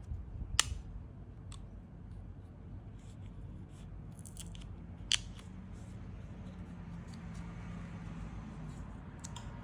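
Scattered small clicks and crinkles as the stickered wireless charging coil is gently peeled up off a smartphone's internals, with a sharper click about half a second in and another about five seconds in. A low steady hum runs underneath.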